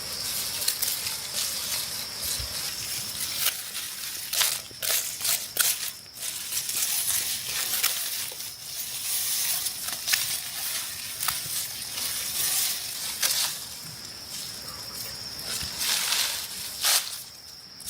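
Dry rice stubble and straw crackling and rustling as it is trampled and handled, with many sharp snaps.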